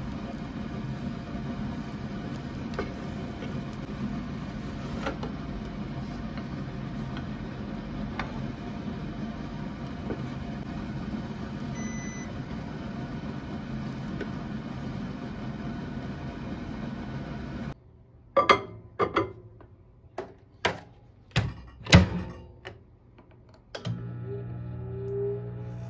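Induction hob running with a steady low hum under a rectangular tamagoyaki pan, with a few light taps of a utensil on the pan as the rolled omelette is cooked. Then comes a run of sharp knocks and clacks. Near the end a microwave oven's mechanical timer dial is turned and the oven starts with a steady hum.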